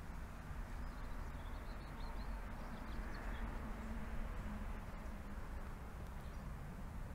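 Outdoor garden ambience: faint bird chirps over a low, steady rumble.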